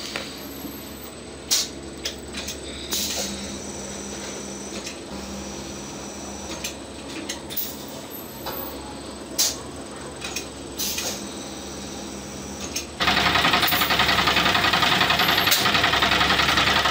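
Steady machine hum with a few sharp clicks. About thirteen seconds in, a much louder, rough, steady noise starts suddenly and keeps going.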